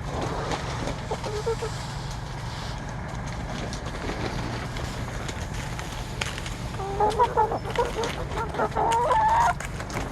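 Hens clucking while they peck at a hanging cabbage, with scattered short pecking clicks; from about seven seconds in, a run of louder calls that step up and down in pitch.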